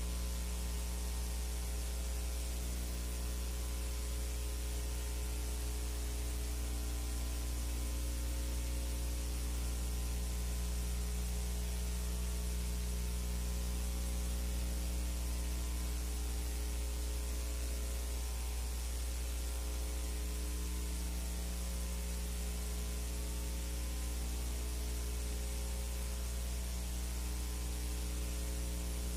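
Steady electrical mains hum with a stack of overtones over constant hiss. It is the noise of the audio track of a silent film, with no other sound.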